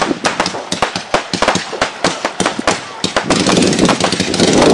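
Fireworks going off in quick succession, a fast string of sharp firecracker-like pops. After about three seconds they merge into a denser, louder crackle.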